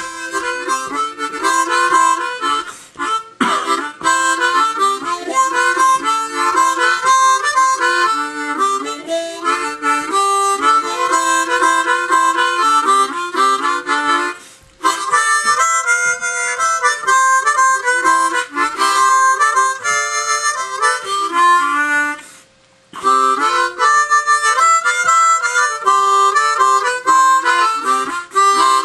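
Hohner student harmonica in C, a beginner model tuned differently from a standard blues harp, played solo: melody lines and chords of several notes at once, with short breaks about 3, 15 and 22 seconds in.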